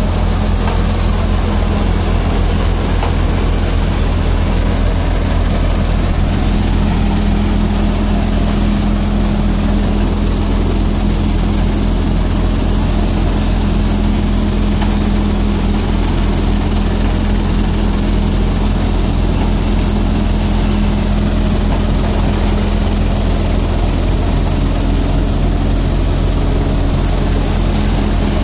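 Multicrop thresher running steadily under load, threshing wet mustard crop: a loud, even machine din over a constant low hum.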